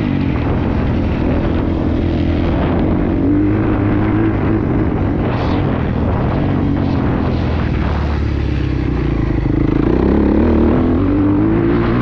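Honda 250 four-stroke motocross bike engine heard from on the bike while riding a dirt track. The engine note rises and falls with the throttle and climbs again near the end.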